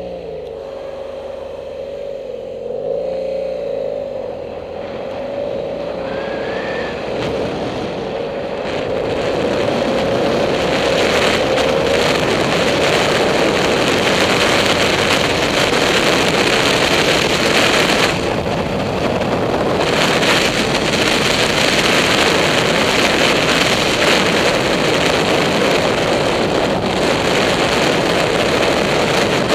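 A motorcycle engine pulling away, its revs rising and falling over the first several seconds. As speed builds, loud, steady wind rush on the helmet-mounted microphone takes over.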